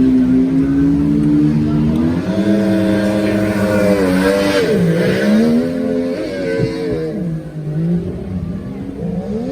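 Jet boat engine revving hard, its pitch rising and dipping again and again as the throttle is worked, then fading somewhat after about seven seconds.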